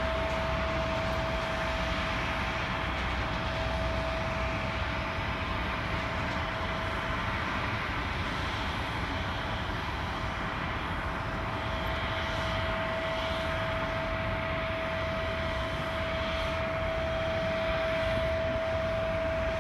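Jet airliner's engines running steadily: a constant broad rush with a single steady whining tone, and a few faint higher whines rising briefly in the second half.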